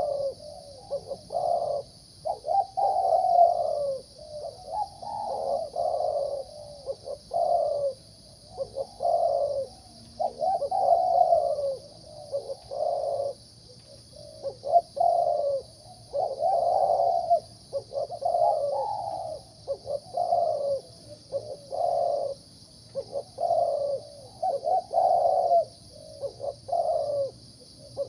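Caged male zebra dove cooing: a series of rolling, staccato coo phrases, repeated about every two seconds. The bird is a competition singer with a mid-pitched voice.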